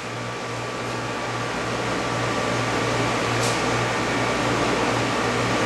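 Tornado-simulator exhibit running: a steady whir of moving air with a low hum as its fan draws a fog vortex up the column. A brief faint hiss comes about three and a half seconds in.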